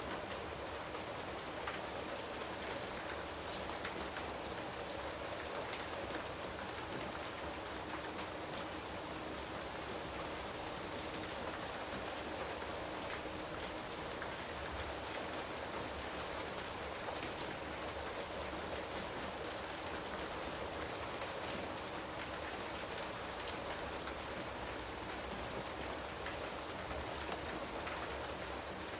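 Steady rain falling on foliage, a constant hiss with scattered drop ticks.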